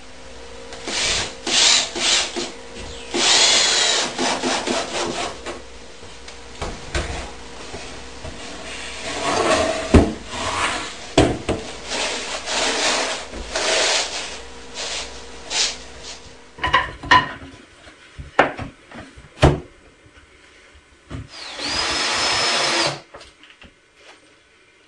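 Power drill running in short bursts on pine boards, its whine rising and falling, with scattered sharp knocks of wood between.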